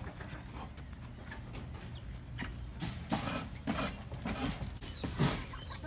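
Chickens in a backyard coop clucking in short calls from about three seconds in, over a steady low rumble.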